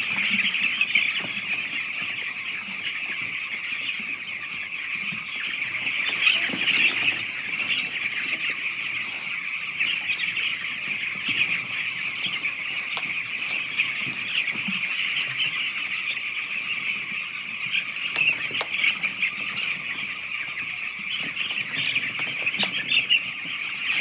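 A flock of eight-day-old chicks cheeping continuously, many high peeps overlapping into a dense chorus, with occasional brief flaps and knocks.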